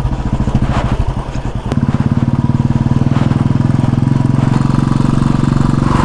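Single motorcycle engine running at low, steady revs over a rough off-road trail; it eases off briefly about a second in, then picks up again and holds steady.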